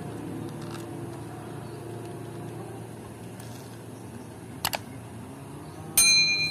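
A single mouse-click sound effect, then, near the end, a sharp bright bell ding that rings on and fades: the click-and-bell effect of a subscribe-button animation. A low steady background runs underneath.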